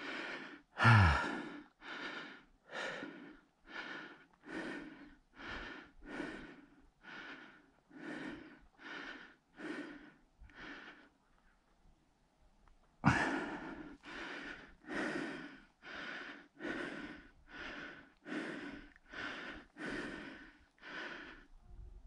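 A hiker breathing hard from exertion: a steady run of heavy breaths, about three every two seconds. They pause for a couple of seconds around the middle, then resume with a louder breath.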